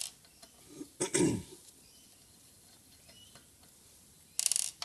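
Small hand-tool work on a brake-lathe cutting head: short scraping, clinking handling noises as tiny cutting-tip retaining screws are undone, at the start and again near the end. About a second in there is a brief throat-clearing grunt.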